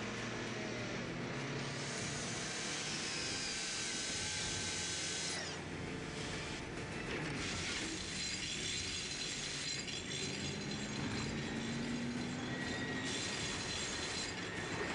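A motorcycle sliding on its side along the road, its metal grinding and scraping on the asphalt in a continuous rasping noise that throws off sparks.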